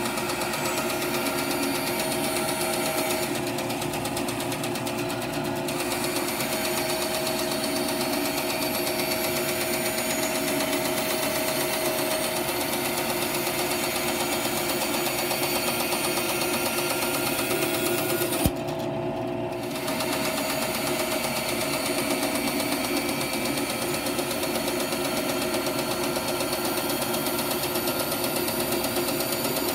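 Rikon 10-305 benchtop bandsaw running steadily while resawing thin slices off a wood block, a steady motor hum under the hiss of the blade cutting. A sharp click comes about two-thirds of the way through, followed by a second-long drop in the hiss.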